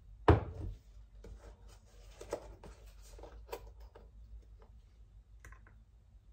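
A single loud thump on a hard surface about a third of a second in, then a few seconds of rustling and light clicks as hands handle a plastic packet on the counter.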